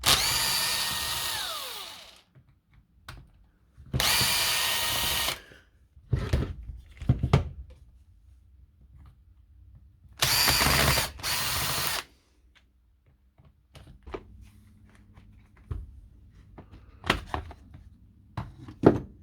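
Electric power tool motor run in four short bursts of one to two seconds each, the first winding down in pitch as it stops. Light clicks and knocks follow.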